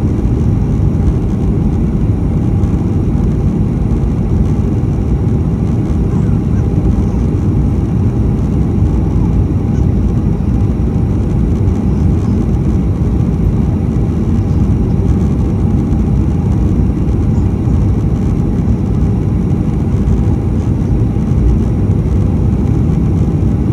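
Airliner cabin noise on the approach to landing: a loud, steady low roar of the jet engines and rushing air, heard inside the cabin from a window seat over the wing, with a faint steady hum above it.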